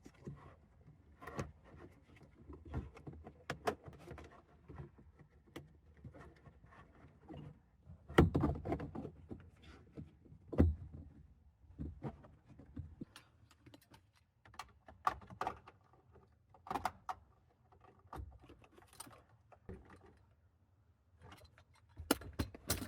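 Plastic interior trim covers being handled and pressed together, their clips pushed into slots: scattered clicks, knocks and rattles. The loudest knocks come about eight and ten and a half seconds in, with a quick run of clicks near the end.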